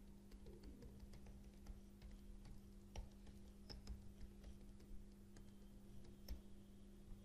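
Computer keyboard typing: faint, irregular key clicks over a steady low hum.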